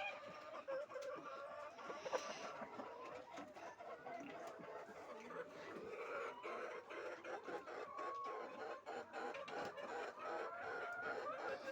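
A flock of laying hens clucking and calling, many birds overlapping in a steady din, with scattered light clicks.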